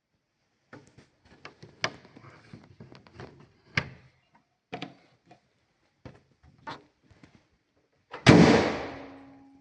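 A run of light clicks and knocks, then one loud slam about eight seconds in that rings and dies away over about a second, like a car door being shut.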